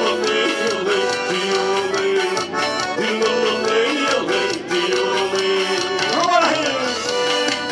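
Live forró band playing an instrumental passage between sung verses: accordion carrying the melody in held and sliding notes over a steady percussion beat.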